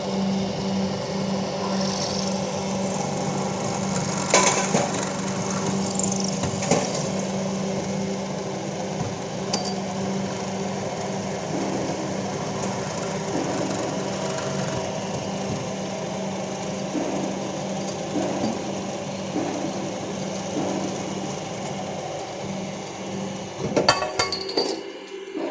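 CNC lathe running with a steady hum while its tools cut a metal shaft under flowing coolant, with a few metallic clinks. A quick cluster of sharp clatters comes near the end.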